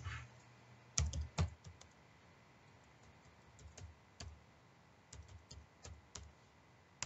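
Typing on a computer keyboard: a dozen or so separate key clicks at an uneven pace, the firmest ones about a second in.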